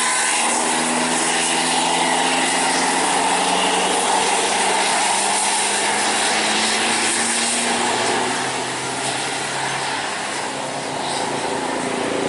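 Traffic engine noise, most likely a tour bus running past after its horn tune has ended. The noise eases off about eight seconds in and builds again near the end.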